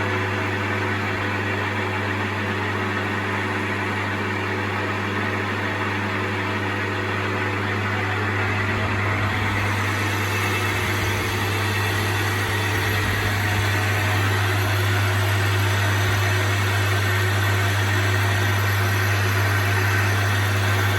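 Metal lathe running steadily, a carbide-tipped tool taking a finishing cut on cast iron: a constant motor hum under an even cutting hiss, a little louder in the second half.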